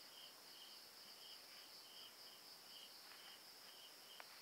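Faint insect sound: a steady high drone with a short cricket-like chirp repeating about twice a second, and a faint click near the end.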